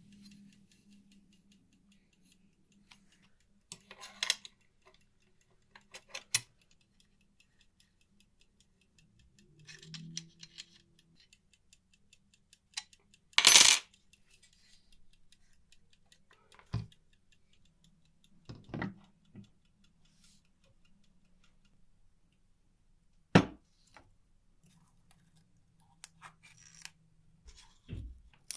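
Scattered sharp clinks and taps of small hard, metallic-sounding objects being handled and set down on a workbench, about half a dozen spread apart, the loudest about halfway through.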